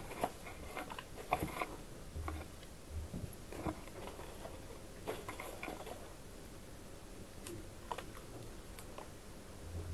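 Sporadic small clicks, taps and rustles of hands working on a floral arrangement of dry white branches and plants, with a couple of soft low thumps about two and three seconds in.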